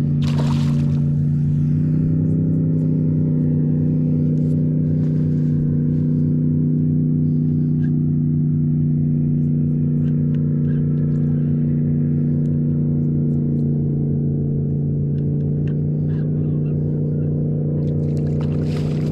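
Boat motor running steadily: an even, unchanging low hum, with a few faint clicks over it.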